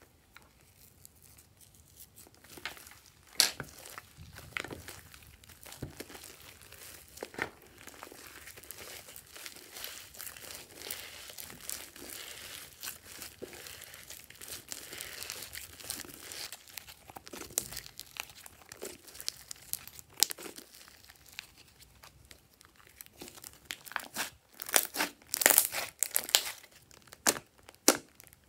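Hands squishing and kneading slime mixed with foam in a glass dish: wet, irregular crackling and squelching, with louder, sharper clicks and pops near the end as the slime is pressed and stretched.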